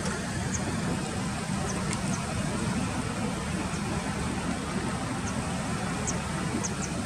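Steady low rumble of distant road traffic, with a few faint, very short high chirps scattered through it.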